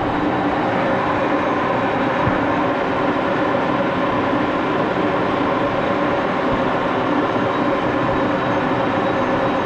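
Axelson lathe running steadily, its gear drive giving a constant multi-toned whine over a mechanical hum.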